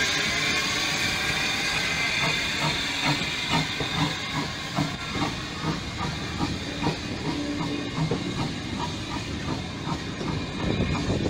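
Steam hissing from the Andrew Barclay steam locomotive as it pulls away with its train, then, from about two seconds in, a regular beat of a few strokes a second as the coaches roll past.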